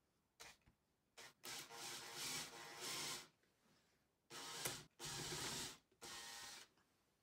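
Cordless drill boring into plywood, its motor whining in short pulses of the trigger: two brief blips, then four longer runs with short pauses between, the longest nearly two seconds.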